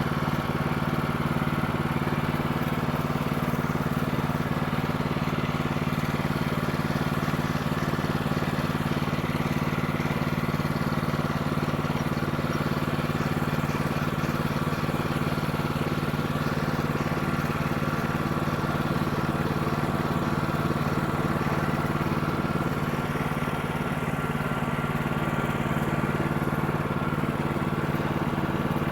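Small gasoline engine of a Woodland Mills HM126 portable sawmill running steadily at a constant speed, not under cutting load.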